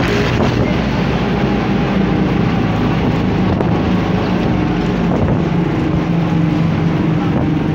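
A motor vehicle's engine running steadily at an even pitch, with wind and road noise, heard while riding along in it.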